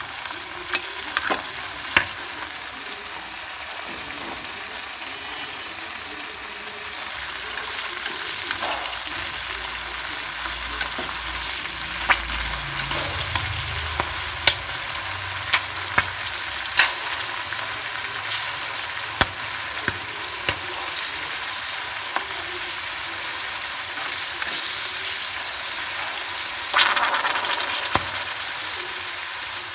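Insect larvae deep-frying in hot oil in a steel wok: a steady sizzle dotted with frequent sharp pops and crackles, swelling briefly louder near the end.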